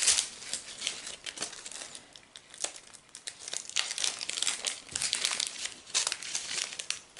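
Foil packet of diamond painting drills and small plastic zip-lock baggies crinkling as they are handled, in short irregular crackles that come and go.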